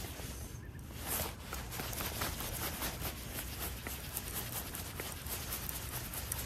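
Centerpin reel being wound in by hand on a hooked fish, the spool giving off a quick, uneven run of light clicks over a low steady rumble.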